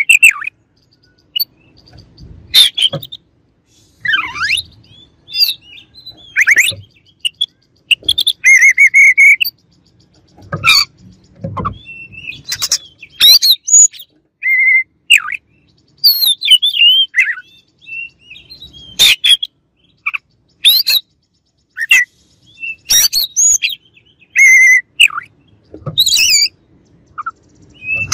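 Oriental magpie-robin singing: a loud, varied string of short whistled and scratchy phrases, some sweeping up or down in pitch, broken by brief pauses.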